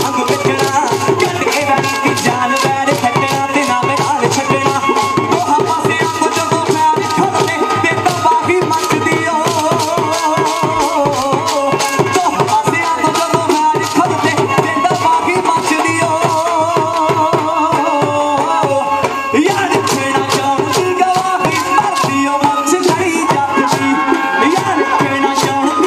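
Instrumental bhangra music: fast, steady drumming with a melody line that wavers up and down over it.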